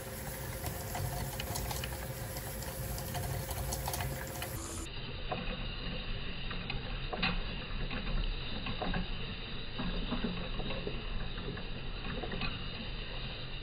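3D-printed lens grinding and polishing machine running, its small motor turning the plastic polishing head against the lens, with a steady mechanical whir and scattered light clicks and ticks. A steady hum stops about five seconds in.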